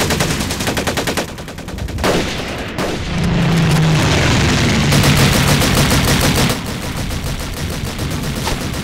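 Gunfire sound effects for a battle scene: rapid machine-gun bursts with rifle shots mixed in, continuing almost without a break.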